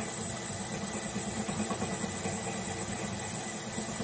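Drill press running steadily while a number 2 twist drill is fed down through the solid brass head of a cartridge case.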